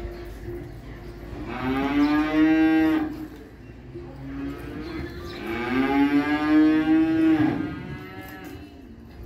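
A calf bawling twice, two long calls a few seconds apart, each sliding up in pitch at its start and then held.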